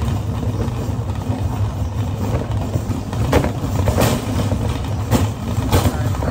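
Wire shopping cart being pushed along, its wheels giving a steady low rumble, with a few sharp rattles or clicks from the cart in the second half.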